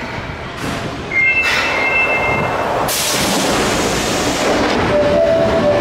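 Osaka Metro Midosuji Line subway train at the station platform: rumbling train noise with a brief high two-note tone about a second in, then a louder rush of noise from about three seconds in, and steady mid-pitched tones near the end.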